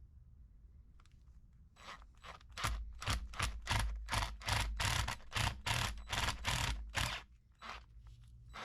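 A hand tool working at the failed shaft seal in a Case 1845 skid steer's hydraulic pump housing, in a run of short noisy scraping strokes, about three or four a second, starting about two seconds in and stopping near the end.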